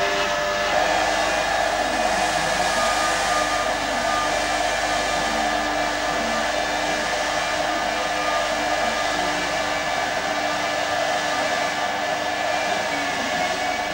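Electric silver-polishing motor running steadily, a whirring hiss with a steady hum as the silver is buffed.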